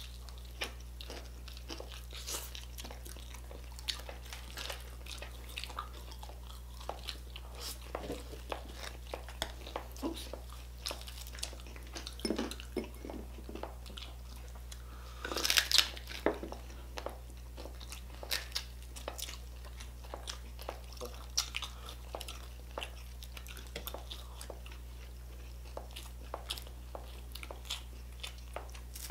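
Close-up chewing and crunching of crispy deep-fried pork knuckle (crispy pata), with short sharp crackles throughout. A louder burst comes about halfway through.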